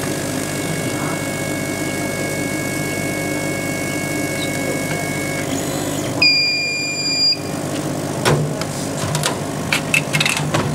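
Laser cutting and engraving machine running with a steady hum and a high whine; the whine stops about five seconds in, and a second later the machine gives one loud beep of about a second, signalling the job is finished. Then come several short knocks as cut MDF pieces are lifted out of the sheet.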